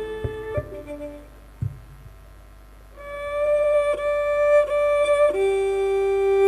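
Northeastern Thai folk ensemble music: a phrase ends about half a second in with a few sharp knocks. After a brief lull, a melodic instrument plays long, steady held notes from about three seconds in, dropping to a lower note near the end.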